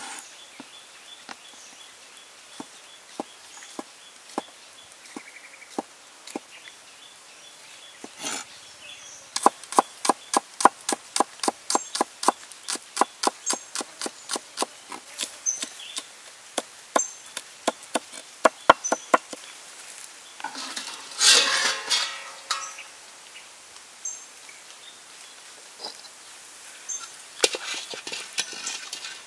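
Cleaver knocking on a wooden chopping board: single slow cuts through sausages, then a long run of quick even chops, about four a second, through spring onions. A short louder rush of noise about two-thirds in.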